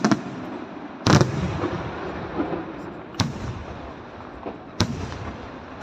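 Aerial firework shells bursting overhead: four sharp bangs, the loudest about a second in with a deep boom, and a steady crackle of burning stars between them.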